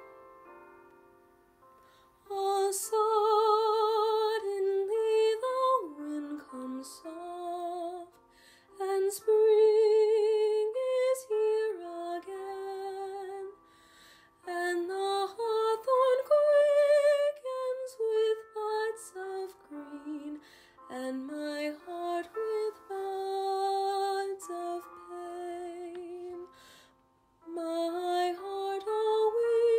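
Female voices singing a slow, lyrical song with vibrato, in phrases separated by short breaths. It is a choral recording.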